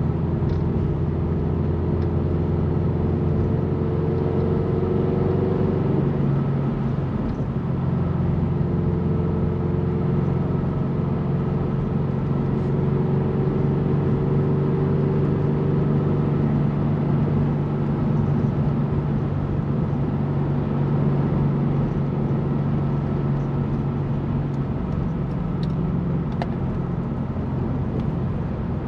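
Turbocharged Scion FR-S's 2.0-litre flat-four engine running under steady cruise, heard from inside the cabin together with road noise. The engine note shifts a little in pitch now and then as the speed changes.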